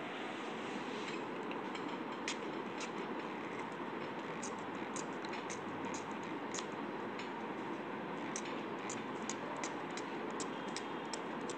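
Light irregular clicks, several a second at times and thickest in the second half, from a small pump spray bottle of pink hair-colour spray being worked against a doll's hair stencil, over a steady background hiss.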